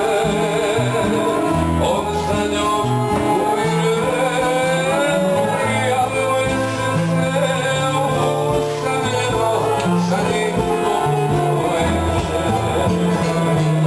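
Live acoustic band music: accordion, guitar and a plucked string instrument playing together, with a man singing into a microphone.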